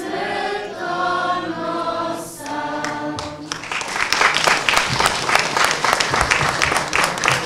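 A choir singing, the piece ending about three and a half seconds in, followed by audience applause.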